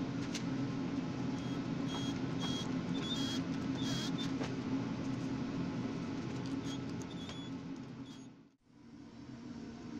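A cordless drill driving wood screws into plywood in several short bursts between about one and a half and four and a half seconds in, with a few clicks, over a steady low hum. The hum cuts out briefly near the end.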